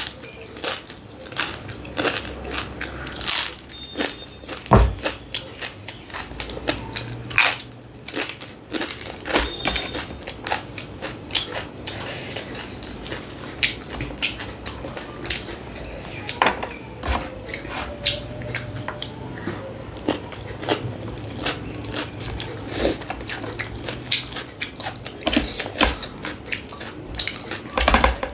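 Close-up eating sounds: irregular biting and chewing clicks, with occasional clinks of dishes.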